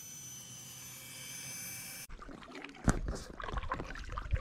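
A steady hum with fixed high whining tones that cuts off abruptly about two seconds in. Then comes water sloshing and splashing around an inflatable kayak being paddled, with irregular low thumps and wind on the microphone.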